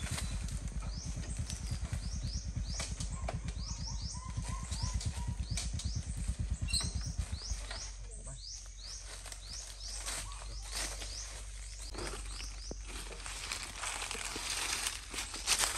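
A run of short high-pitched chirps, each rising in pitch, two or three a second for about ten seconds over a low steady hum. They are followed by scattered clicks and rustles, louder near the end.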